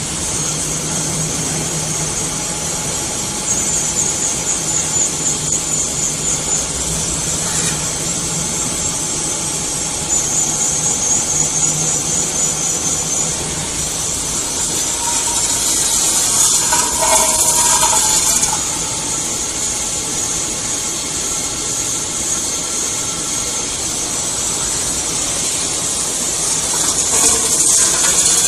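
CNC metal spinning machine running, with a steady high hiss over a low hum that swells in pulsing stretches. A short squeal rises out of it about halfway through and again near the end.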